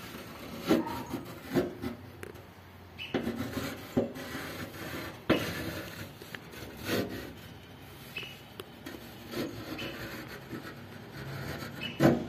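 Carpenter's pencil scratching across sheet metal as a cutting line is drawn, in short uneven strokes with a few sharper knocks of handling.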